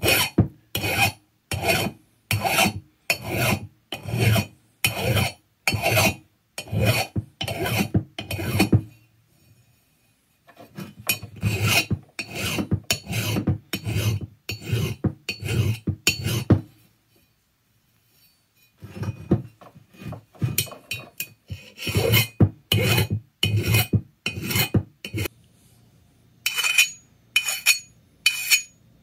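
Flat hand file rasping across the blade edges of a Sea-Doo jet pump impeller in even strokes, about two a second, broken by two short pauses; it is smoothing out nicks, chips and bends in the blades. Near the end the strokes come more sparsely and sound brighter.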